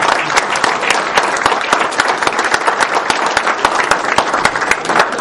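Audience applauding in a hall: many hands clapping steadily at the close of a speech.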